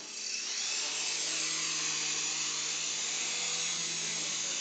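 Small remote-control helicopter's electric motor and rotor blades whirring, rising quickly at the start and then running steadily.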